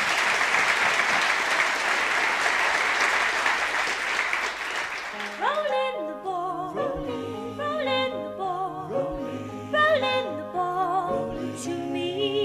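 Studio audience applauding, then about five seconds in a band starts up: a woman singing with vibrato over a grand piano, bass guitar and drums.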